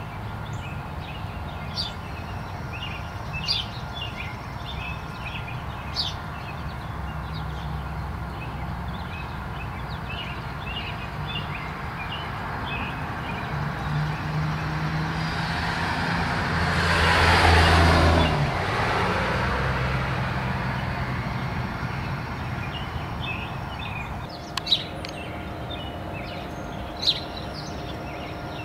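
A motor vehicle passes, growing louder to its peak about two-thirds of the way through and then fading away, over a steady low hum. Faint bird chirps and a few sharp clicks come and go.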